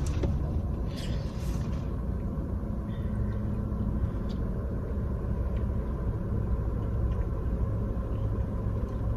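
Car air conditioning running: a steady low rumble with a faint hum, and a few faint ticks.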